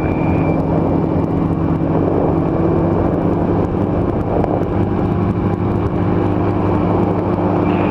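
Powered parachute's engine and propeller running steadily in flight, an even drone.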